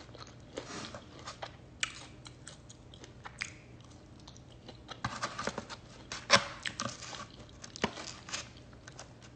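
A person chewing and biting into fried chicken wings close to the phone's microphone: scattered short crunches and wet mouth clicks, coming thickest about five to seven seconds in.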